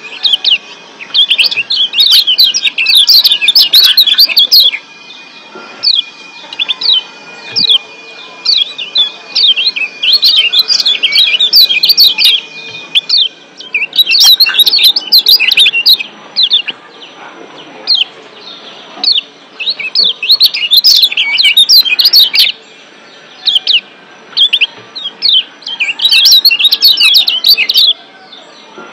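Lombok yellow white-eye (kecial kuning) calling in fast bouts of sharp 'ciak' chirps, each bout a few seconds long with short pauses between.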